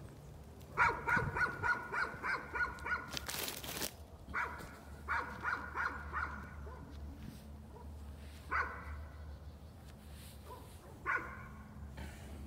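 A dog barking in quick runs of short barks, about four a second, then two single barks further apart: repeated nuisance barking. A short burst of noise cuts in between the two runs.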